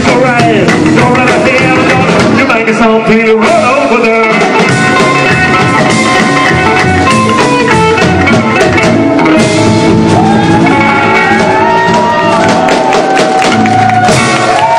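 Rockabilly band playing live and loud: electric guitar and drum kit with a singing voice over them.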